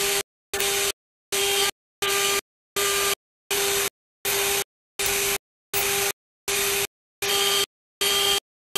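Metal CNC engraving machine's spindle cutting a metal plate: a steady hiss with a low hum. It comes in short even bursts about one and a half times a second, each broken off by dead silence.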